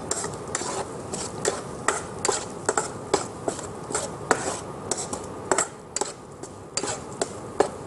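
Spatula scraping and knocking against a non-stick frying pan while stirring steamed moong dal mixed with spices: irregular short clicks and scrapes, about two a second.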